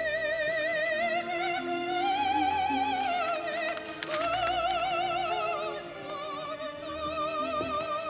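A high woman's voice singing in an operatic style: long held notes with a strong, even vibrato, moving to a new note about four seconds in and again near six seconds, over a soft sustained accompaniment.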